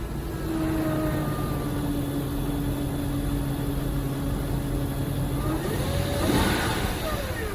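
A motor vehicle running with a steady whining tone. About five and a half seconds in, the whine rises in pitch as it revs, with a rush of noise at the peak, then falls back near the end.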